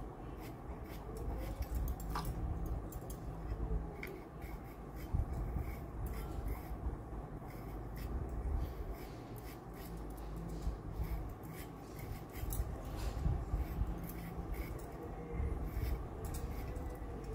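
Kitchen knife paring the skin off raw potatoes: many short scraping strokes, over a steady low hum.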